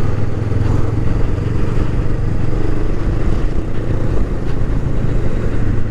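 Honda Rebel 500's parallel-twin engine running at a steady cruise while riding, a low even hum under a rush of wind and road noise.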